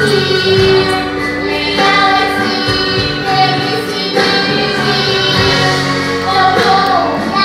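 Young girl singing into a microphone, accompanied by an electronic keyboard.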